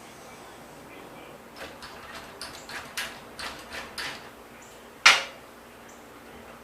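A quick run of light knocks and clatters, then one loud sharp knock about five seconds in.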